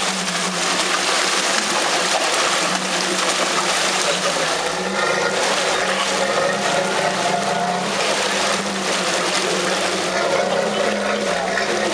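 Diesel engine of a Jeep Wrangler running steadily as it crawls through a muddy gully, with mud and water sloshing under the tyres.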